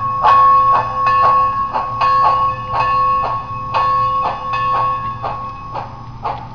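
Model passenger train rolling slowly on the layout track: wheels clicking over the rail joints about twice a second, the clicks spreading out near the end as it slows, with a steady whine that fades out about five seconds in.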